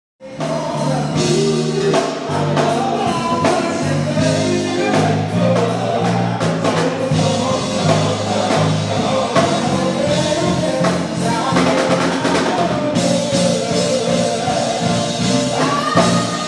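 A band playing a song with male vocals over a bass line, drum kit and keyboards, cutting in abruptly just after the start.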